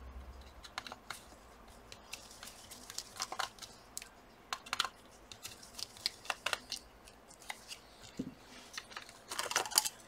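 Light scattered clicks and ticks of small screws and the laptop's plastic fan assembly being handled, with a quick run of clicks near the end as the fans are lifted out.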